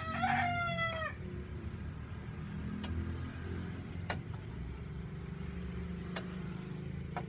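A rooster crowing, its long call trailing off about a second in. Then a steady low hum with four sharp clicks.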